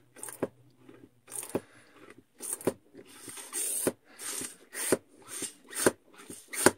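Survivor Filter Pro hand-pump water filter being worked stroke after stroke. Each stroke gives a sharp click, with a hiss of liquid being forced through between the clicks.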